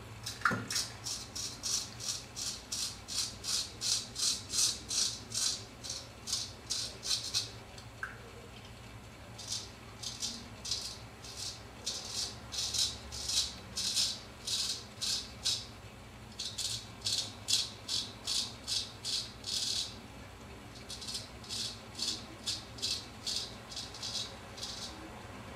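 Keen Kutter #44 straight razor scraping through lathered beard stubble in quick short strokes, about three a second. The strokes come in runs of several seconds with short pauses between.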